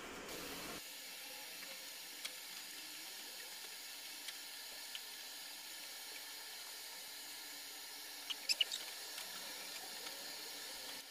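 Faint steady hiss with a few scattered short squeaks and ticks, and a quick cluster of sharp high squeaks about eight and a half seconds in: a rubber-gloved hand wiping a stainless-steel range hood.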